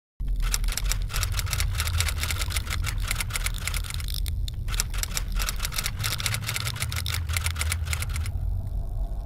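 Fast, dense mechanical clicking over a steady low hum; the clicking stops near the end while the hum goes on.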